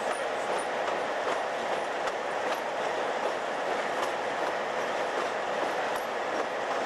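Steady running noise of an EMD MP15DC diesel locomotive, with its 12-cylinder 645 engine, rolling along under way, with a few faint, irregular clicks of the wheels over the rail joints.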